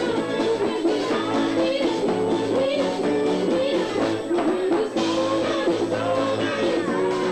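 Live South African Indian chutney band music: a bending melody line over steady held chords and a beat.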